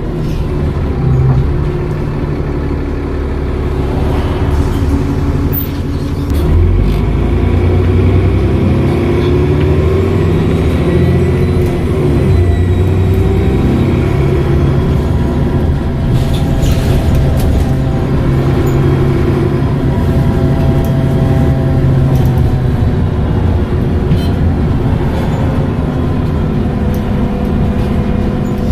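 Dennis Trident double-decker bus's diesel engine and Voith automatic gearbox under way, the engine note rising and falling as the bus pulls away and changes speed. A thin high turbo whistle rises and falls with it, clearest in the middle.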